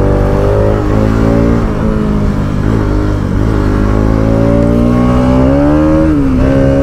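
Motorcycle engine running under way, heard from on the bike, its pitch climbing slowly as it pulls, with a few brief dips in revs and a drop and pick-up near the end.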